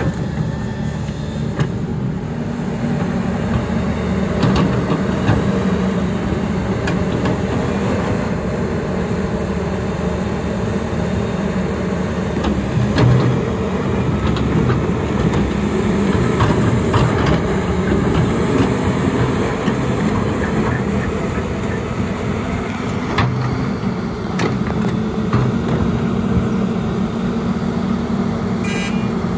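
Sany SY335C excavator's diesel engine running steadily while the hydraulics work the boom and bucket, with the engine note swelling slightly under load now and then. A few light clanks are heard.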